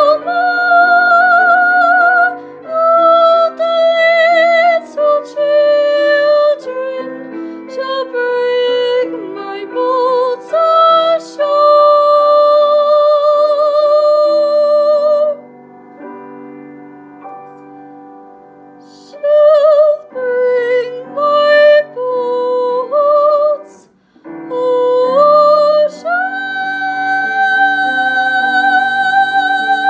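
A young woman singing solo in a classical style over a piano accompaniment, holding long notes with vibrato. Her voice stops for a few seconds about halfway through while the piano plays on quietly. She then returns and sustains one long high note near the end.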